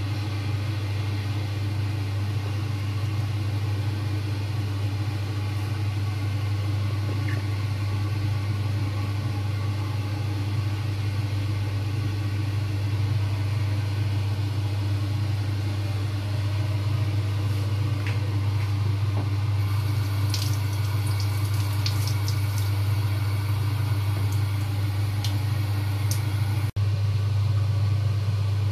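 A steady low hum over a hiss. In the second half there are a few light, sharp clicks.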